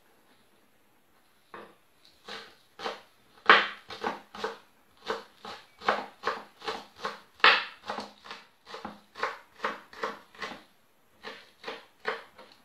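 Kitchen knife chopping green onions finely on a wooden cutting board: a steady run of knocks, about two to three a second, starting about a second and a half in, with a brief pause near the end.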